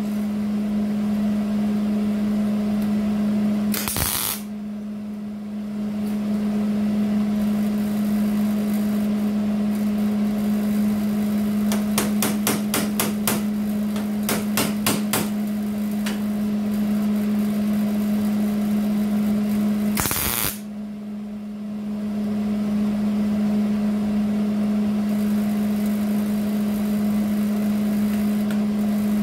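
MIG welder laying welds on rocker-panel sheet steel: a steady crackle from the arc over a constant low hum. The crackle cuts out briefly twice, each time after a short loud burst, and a quick run of sharp taps comes near the middle.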